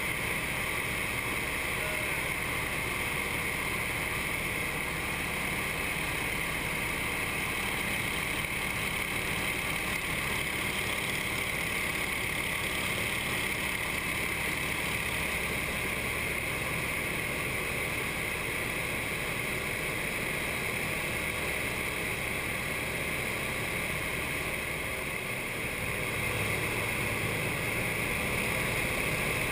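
Nine-cylinder radial engine and propeller of a CJ-6A or Yak-52 trainer running steadily at formation cruise power, heard inside the cockpit. The drone dips slightly a few seconds before the end, then comes back a little louder.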